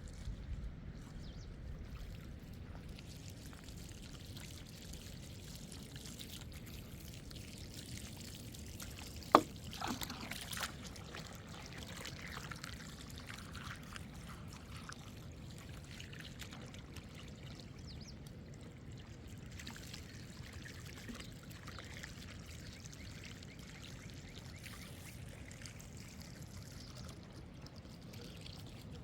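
Steady trickle of pouring liquid, with one sharp knock about nine seconds in.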